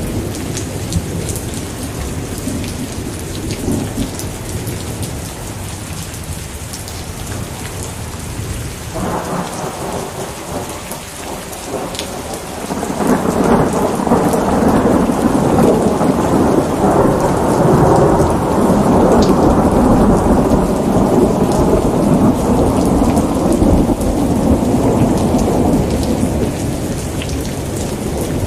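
Steady rain falling in a thunderstorm. About halfway through, a long roll of thunder swells up and rumbles on for most of the rest.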